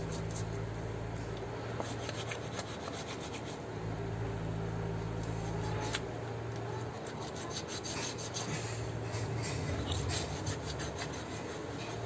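Soft rubbing and small clicks of a knife and hands working on a raw chicken carcass as the intestines and rectum are cut away. The clicks grow more frequent in the last few seconds. A steady low hum comes and goes underneath.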